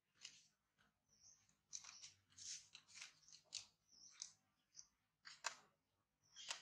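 Young macaque gnawing on a dry twig: a faint, irregular run of short crunches and crackles.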